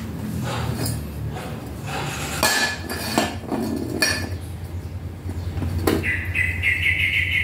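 Thin-walled steel pipes knocking and clinking against each other and a steel work surface as the coped pipe is set down and fitted against the other, about five separate metal knocks over a steady low hum. A high steady tone comes in near the end.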